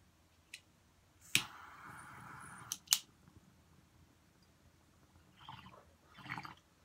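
Sharp clicks from small objects being handled. The loudest click comes about a second and a half in and is followed by about a second and a half of steady rasping; two more clicks come together about three seconds in, and two short, soft noises come near the end.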